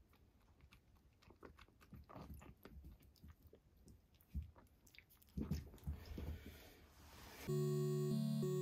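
Tabby kitten suckling milk from a baby bottle, a run of soft clicks and smacks as it sucks and chews on the nipple. Music starts near the end.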